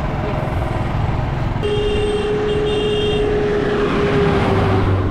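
Motorcycle engine and road noise while riding, with a steady tone held for about three seconds from a second and a half in, as an oncoming bus comes close and passes near the end.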